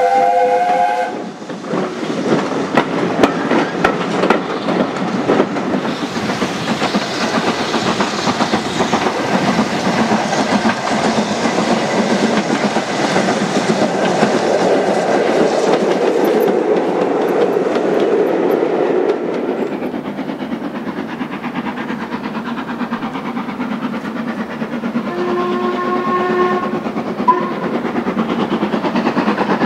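Steam locomotives hauling trains past at speed, with a continuous clatter of exhaust beats and wheels over rail joints. A steam whistle sounds a multi-note chord briefly at the start, and another whistle sounds for about two seconds near the end.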